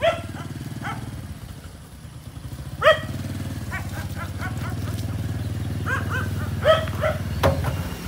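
Small motor scooter with a sidecar running slowly, its engine a steady low hum that grows a little louder after about two seconds. A dog barks and yips several times over it, loudest about three seconds in.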